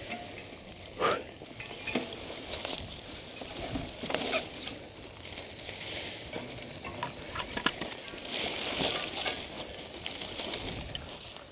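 Mountain bikes pushed on foot along an overgrown trail: leaves and stems brushing past, footsteps on dirt, and scattered clicks and rattles from the bikes, with a sharper knock about a second in.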